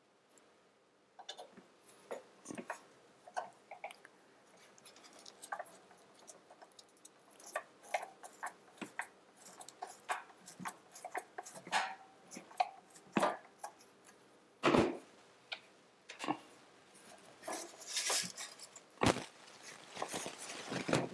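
Screwdriver turning screws into the fan and aluminium case of a Bitmain Antminer, heard as scattered small metallic clicks and scrapes, with a few louder knocks in the second half as the unit is handled.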